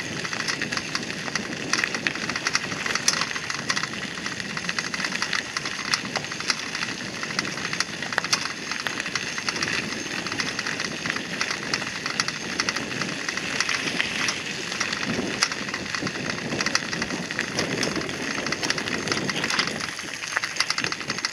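Bicycle tyres rolling over a gravel path: a continuous crackle and crunch of small stones.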